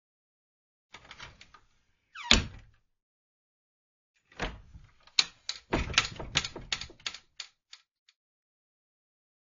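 Wooden cupboard door squeaking and clicking as it is worked: a few faint clicks about a second in, a loud short squeak with a knock about two and a half seconds in, then a long run of rapid creaks and clicks from about four and a half to eight seconds.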